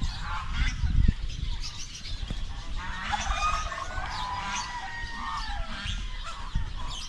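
Domestic fowl calling: a run of pitched calls from about three seconds in, over scattered smaller bird chirps. A low thump about a second in is the loudest moment.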